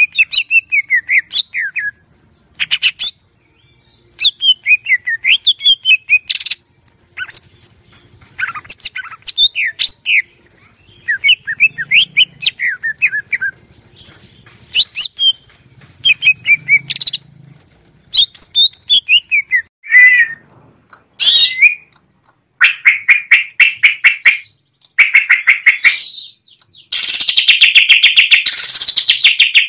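Cucak ijo (greater green leafbird) singing a loud, varied song of quick chattering phrases, many falling in pitch, with short pauses between them. Over the last few seconds it runs into a fast, unbroken trill.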